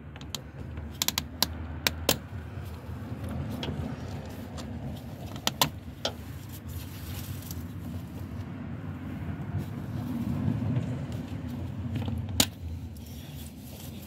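Scattered sharp metallic clicks and clinks of needle-nose pliers working a spring hose clamp onto a coolant hose, over a steady low hum. The sharpest click comes near the end.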